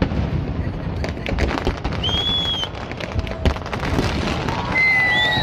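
Aerial fireworks going off in a dense run of bangs and crackles over a steady rumble. A few short high whistles come through about two seconds in and again near the end.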